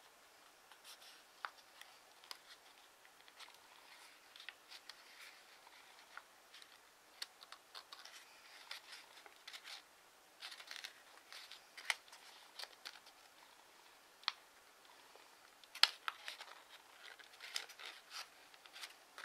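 Origami paper (TANT paper) rustling and crinkling as hands fold and press creases, with faint scattered crackles and clicks and one sharper crackle about three-quarters through.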